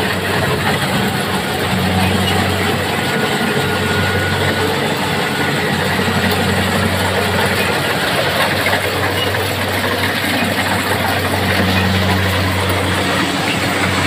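Kubota rice combine harvester running at a steady speed as it cuts standing rice. Its diesel engine gives a continuous low drone, with a dense mechanical rattle from the machine over it.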